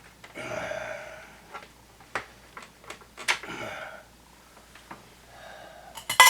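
Small clicks, taps and rustling from handling small radio parts on a workbench, with a few loud, sharp metallic clicks near the end.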